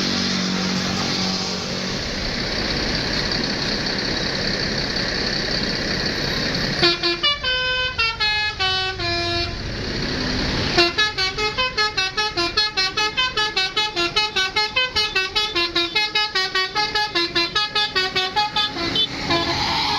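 Bus telolet horn, a multi-tone musical horn, playing a tune. A short falling run of notes comes about seven seconds in, then from about eleven seconds a fast run of notes, roughly four a second, for some eight seconds. Before the horn there is the steady noise of the bus engine running.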